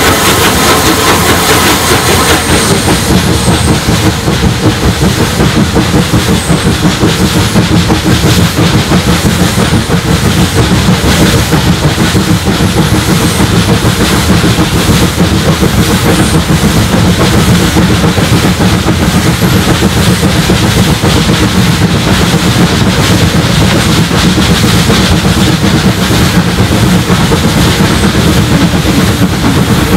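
Rebuilt SR Merchant Navy class 4-6-2 steam locomotive 35028 'Clan Line' accelerating hard with a train. Its three-cylinder exhaust gives a rapid, even beat with steam hiss, heard close up from the train's front window.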